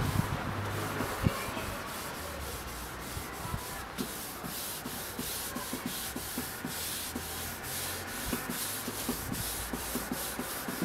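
A cloth rubbed briskly back and forth over a wooden board, working carnauba wax into the wood: a rhythmic scrubbing hiss of quick, even strokes.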